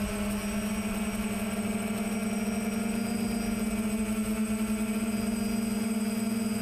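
Quadcopter's electric motors and propellers, recorded from the onboard camera, droning steadily in slow flight, their pitch creeping slightly higher partway through.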